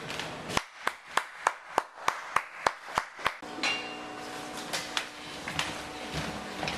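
Hands clapping in a steady rhythm, about three sharp claps a second, stopping about three and a half seconds in; a low steady hum follows.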